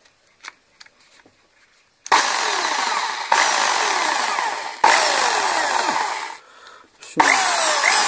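Meister Craft MPMB 750E rotary hammer's electric motor switched on three times after a few handling clicks, running at full speed, dropping briefly once and winding down about two-thirds of the way through before it starts again. The tool that would not switch on now starts and runs after the repair.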